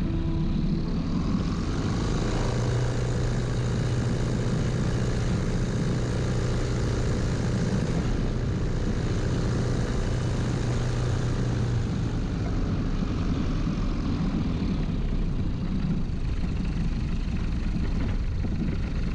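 Kitfox light aircraft's Rotax engine and propeller running steadily at low power while taxiing on a grass strip: an even drone with a low hum.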